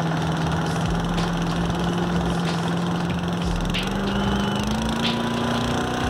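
Small engine on a homemade paddock vacuum running steadily, its pitch rising a little past halfway as the throttle is opened up for more suction.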